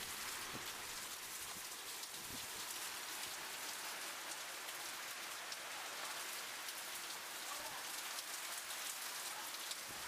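Steady rain falling on a wet driveway and lawn: an even hiss with no letup.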